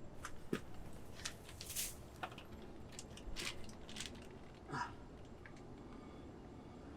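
Scattered faint clicks and short scrapes of lug nuts and the wheel being handled and fitted by hand at the wheel hub.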